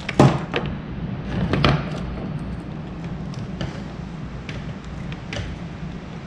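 A printed circuit board being handled on a cluttered workbench: a few knocks and rattles in the first two seconds as it is turned over and set down, then light taps and ticks, over a steady low hum.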